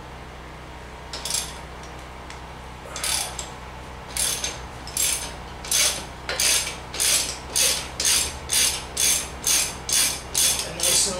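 Socket ratchet clicking on its return strokes as the 19 mm rear axle nut of a Honda Grom is loosened: a few scattered strokes at first, then a quick, even run of about two strokes a second through the second half.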